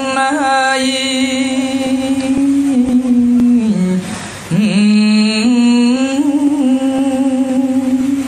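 A solo male voice chanting Khmer smot, an unaccompanied Buddhist verse recitation, in long held notes with wavering ornaments. There is a short breath break about four seconds in, after which the voice comes back low and rises again.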